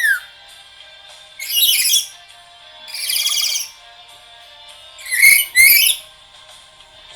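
Black-capped lory giving loud, harsh calls: one about a second and a half in, a longer rasping one around three seconds, and two in quick succession near six seconds, over a faint steady background of tones.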